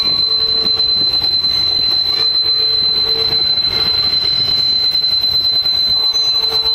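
Chicago & North Western 4160, a GP7 diesel locomotive, passing slowly with its train. A steady, high-pitched wheel squeal carries over the rumble of the wheels on the rails.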